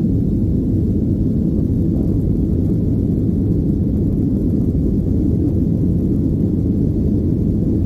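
Steady low drone of jet engines and rushing air heard inside the passenger cabin of a WestJet Boeing 737 climbing after takeoff.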